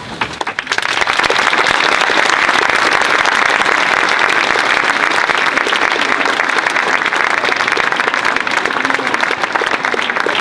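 Audience applause: many people clapping, swelling up within the first second and then holding steady.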